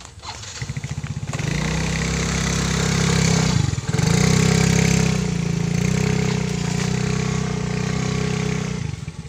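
A motorcycle engine running close by: it comes up about a second in, runs at a steady pitch with a brief drop about four seconds in, and falls away near the end.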